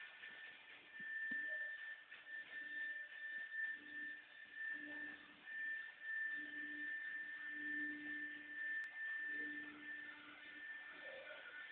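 A 4-axis CNC router running: a steady high whine, broken by short gaps, over a lower hum that comes and goes.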